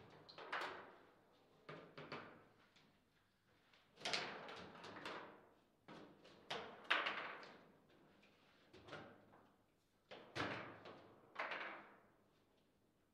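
Table football play: irregular sharp knocks and clacks, about a dozen, as the ball is struck by the plastic player figures and bangs against the table and its rods, some impacts ringing briefly.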